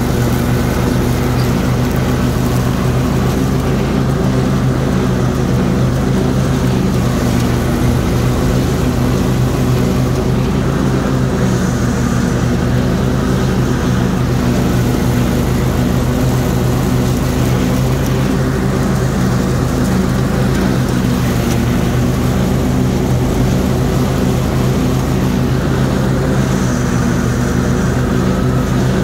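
Kawasaki engine of a Toro TimeCutter SS5000 zero-turn mower running steadily with the 50-inch deck's blades engaged, mowing taller grass.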